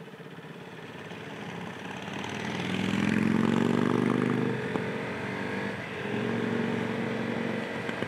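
Motorcycle engine accelerating, its pitch rising for about two seconds near the middle, then easing off and running steadily.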